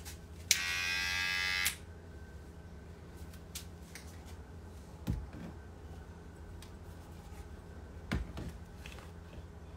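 A loud electric buzz starts about half a second in and cuts off after just over a second. Two dull knocks follow later, over a steady low hum.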